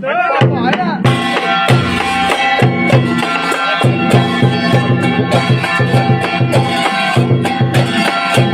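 Vietnamese funeral music: rapid, steady drumming with a pitched melody instrument playing over it. It starts after silence with a wavering opening phrase, and the drums come in fully about a second in.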